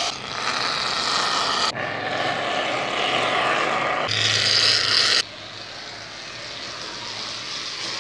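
Aerosol can of shaving foam spraying into a bowl: a continuous hiss that changes abruptly in level a few times and drops to a softer hiss about five seconds in.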